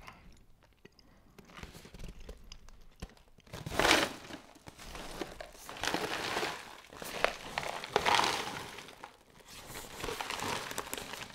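Cereal packaging crinkling and rustling as it is handled, in several bouts, the loudest about four seconds in.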